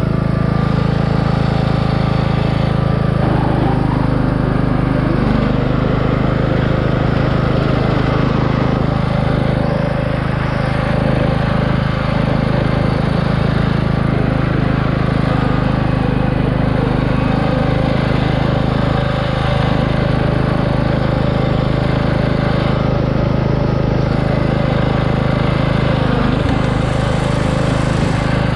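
Craftsman riding lawn mower's 17.5 hp engine running steadily, with a slight change in its note about three seconds in.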